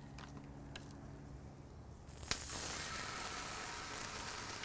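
A thick ribeye steak laid onto a hot flattop griddle in melted beef tallow and starting to sizzle: the first two seconds are quiet with a few faint ticks, then about two seconds in a sharp tick as the meat goes down and a steady searing hiss sets in.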